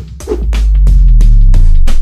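Loud intro music: a fast, steady drumbeat with a deep bass swell building under it.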